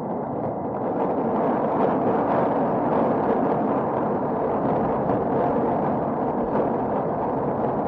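Thunder rumbling in one long, continuous roll, swelling about a second in and then holding steady, with no sharp crack.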